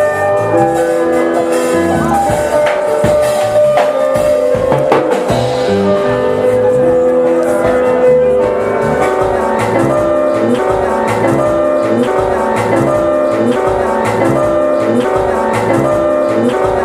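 Instrumental music with a steady beat: sustained pitched notes over a repeating bass line, with tambourine-like percussion.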